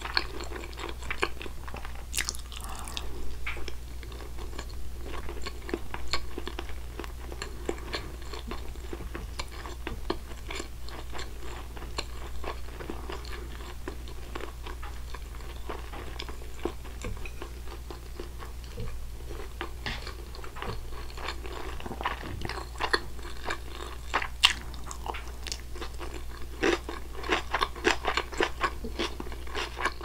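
Close-miked chewing of a mouthful of white rice, with many small wet mouth clicks, busier near the end.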